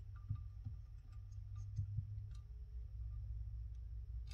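Soft knocks and a few faint light clicks from a metal carburetor off an OMC Cobra 2.3 boat engine being handled and worked loose by hand, over a steady low hum.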